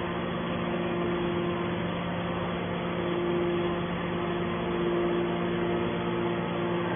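Hydraulic metal baler's motor and pump unit running idle, a steady mechanical hum with a low drone and a higher whine that swells and fades a couple of times.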